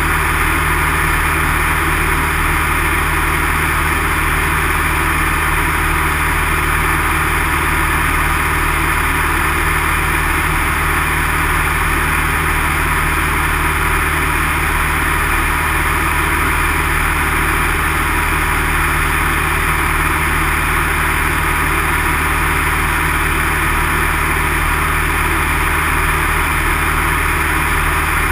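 Steady drone of a small light aircraft's piston engine and propeller, heard from inside the cockpit in flight.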